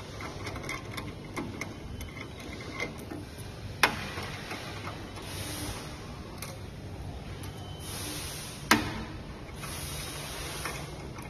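Small metal clicks and clinks as screws are loosened and taken off a stainless-steel motor mounting bracket, with two sharper knocks about four and nine seconds in, over a low steady hum.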